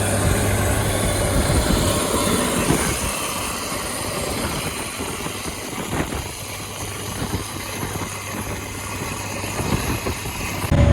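Challenger 875C tractor engine running steadily under a broad rushing noise while pulling a Gaspardo Diablo 600 cultivator. Near the end the sound switches abruptly to a louder, deeper engine.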